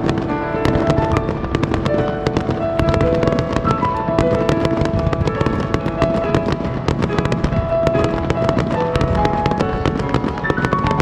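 Fireworks going off in rapid, dense succession with lots of crackling, many reports a second, over music playing a clear melody.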